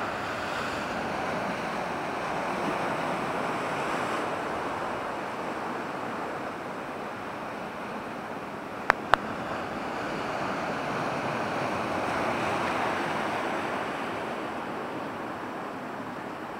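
Sea surf breaking and washing over basalt rocks, a continuous rushing noise that swells and eases twice. Two sharp clicks close together about halfway through.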